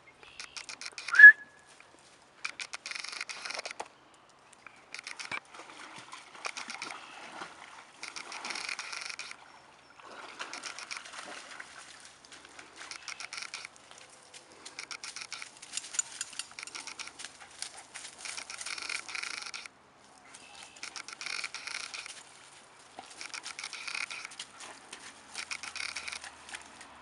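Crunching steps through dry brush and over frozen ground, coming in bursts of crackle a second or two long with short gaps. One brief, sharp, high squeak about a second in is the loudest moment.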